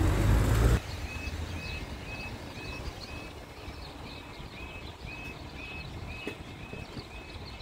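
Level crossing warning alarm: short, high electronic tones repeating evenly about twice a second, sounding with the amber warning light before the barriers lower. At the very start a car passes close by, and its noise cuts off suddenly under a second in.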